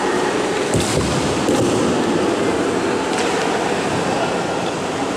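Karateka performing a kata in a reverberant sports hall: a steady din of hall noise, broken by three sharp snaps from the strikes and stamps, the last about three seconds in.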